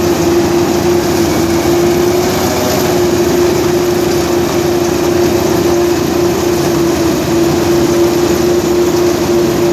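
Vishal 435 combine harvester running steadily while cutting paddy: a loud, constant machine noise with one steady whining tone held through it.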